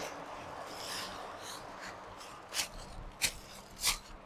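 Footsteps crunching through dry fallen leaves, with a faint rustle, then three sharper crunches about two-thirds of a second apart near the end.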